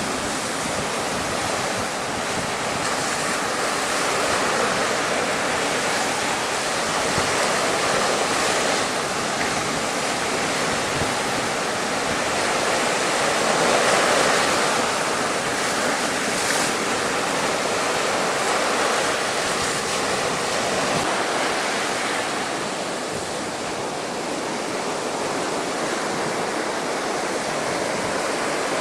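Storm-driven waves of Chesapeake Bay surging and breaking against a sea wall at high tide, a continuous wash of surf that swells and eases, about the loudest near the middle. Wind buffets the microphone.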